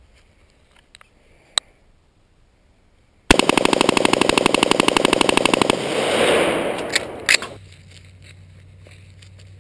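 AR-15 rifle bump-firing through a Slide Fire SSAR-15 stock: a rapid, even string of shots starting about three seconds in and lasting about two and a half seconds, then a reverberating tail with a couple of sharp cracks as it dies away.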